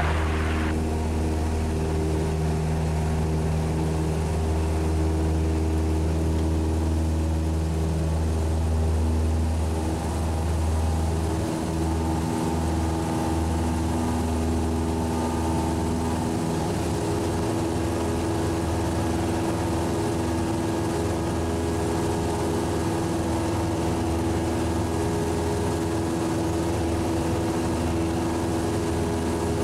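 Cessna 172's piston engine and propeller running at full takeoff power, a steady drone heard from inside the cabin through the takeoff roll and climb-out.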